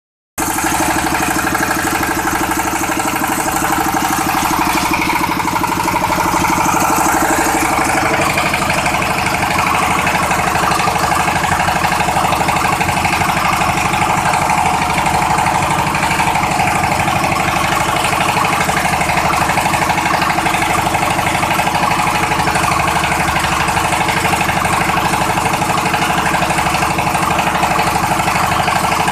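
16 hp single-cylinder diesel engine running steadily with a fast, even firing beat, driving the hydraulic pump of a plastic-bottle baling press.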